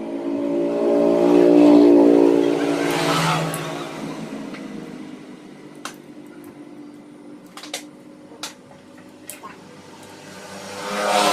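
Motorcycle engine noise that swells up and fades away over a few seconds, twice, the second time near the end, with a few sharp clicks in the quieter stretch between.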